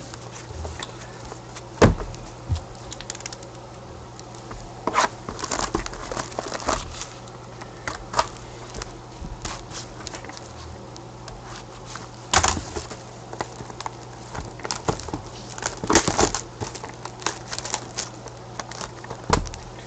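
Clear plastic shrink wrap being cut and pulled off a sealed box of hockey cards, crinkling, with scattered clicks and knocks as the box is handled; the sharpest click comes about two seconds in. A steady low hum runs underneath.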